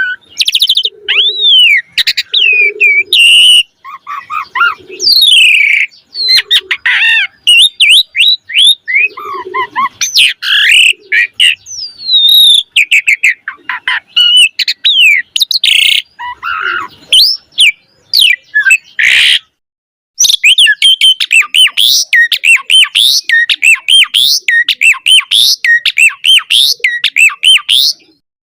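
Asian pied starling (jalak suren) singing in full, rapid song: a long, varied string of whistles, chatters and squawks, studded with imitations of other birds' calls. A short pause comes about two thirds of the way through, followed by a dense run of quick rising-and-falling whistles.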